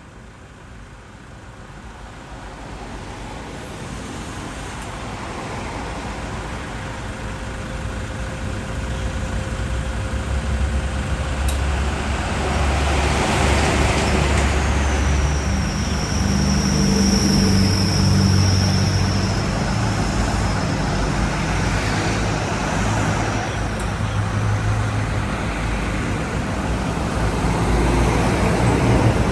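Road vehicle engine growing louder over about twelve seconds as it comes close, then running steadily nearby, with a high whine for several seconds midway.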